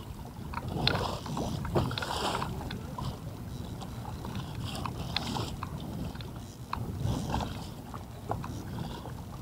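Lake water slapping and lapping against the hull of a small Sun Dolphin Pro 120 fishing boat, with scattered light clicks and knocks.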